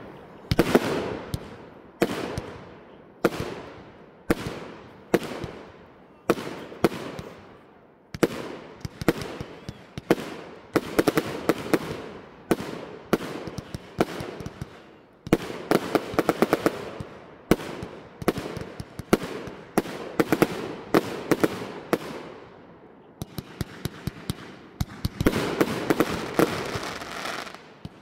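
Multi-shot fireworks cake firing: sharp shots about once a second for the first eight seconds, then bursts with rapid crackling and quick volleys of pops, ending in a dense run of fast shots.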